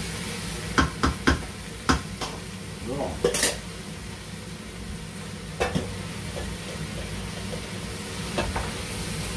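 Diced onion, garlic, leek and pumpkin sweating in olive oil in a pot, sizzling as they are stirred with a spoon that knocks sharply against the pot: several knocks in the first couple of seconds, two in the middle and one near the end. A kitchen extractor fan hums steadily underneath.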